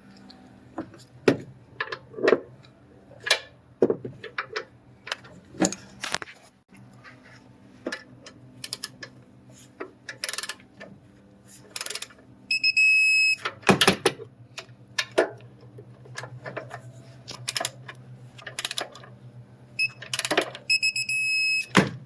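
Irregular clicks, knocks and clatter of hand tools and metal parts over a low steady hum. A steady electronic warning tone sounds twice, for about a second midway and for nearly two seconds near the end.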